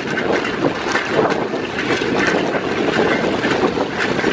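Wind rushing and buffeting over the microphone of a camera carried on a moving bike, a steady rough rush of noise.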